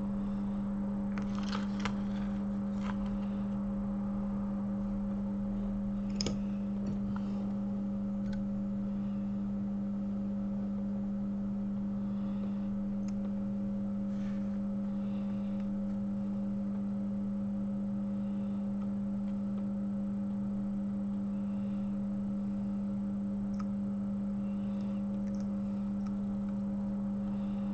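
A steady low electrical hum, one main tone with a couple of fainter higher ones, with a few faint clicks and taps in the first several seconds.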